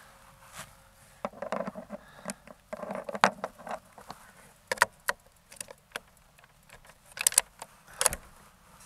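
Scattered light clicks and rattles of gear being handled at a shooting bench, with one sharper click about three seconds in.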